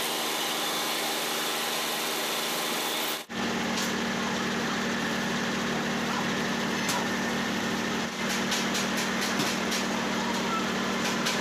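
Mini rice mill machinery running with a steady mechanical hum. The sound changes abruptly about three seconds in and carries on steady, with some knocks or rattles near the end.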